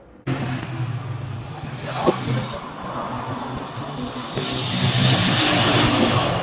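A small electric machine running steadily, a hum under a hiss, with a single click about two seconds in; the hiss grows louder about four seconds in.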